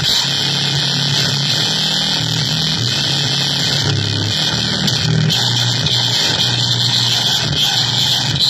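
Harsh electronic noise music from a keyboard and drum machine: a dense, loud hiss over a low droning tone that steps between a few pitches.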